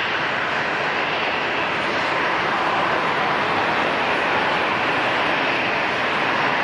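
Airliner engines running, a steady, even rushing noise with no sudden changes.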